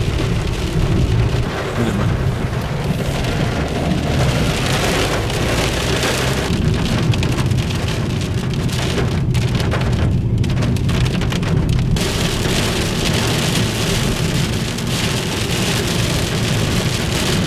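Rain on a car's windscreen heard from inside the moving car: a steady hiss of rain over a continuous low rumble of road noise. The rain hiss thins for a moment about ten seconds in.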